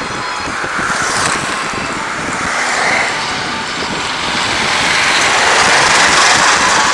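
Road traffic passing close by, over a steady rush of wind on the microphone; the noise swells a few times and is loudest about six seconds in.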